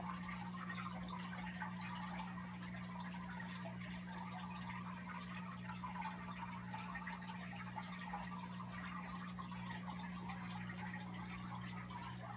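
Water running from a hose into a partly filled 125-gallon aquarium as it is refilled, a steady stream with no pauses, over a steady low hum.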